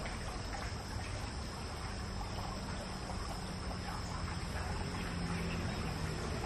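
Steady insect chirring over an even outdoor background hiss, with a faint low hum in the middle.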